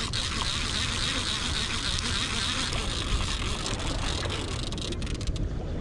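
Steady buzzing of insects, a hiss brightest in the upper range, over a constant low rumble.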